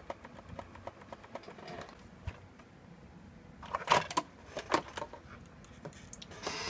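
Light clicks and knocks of a cassette deck's plastic front panel and mechanism being handled and shifted, with a louder clatter of several knocks about four seconds in and a short rustle near the end.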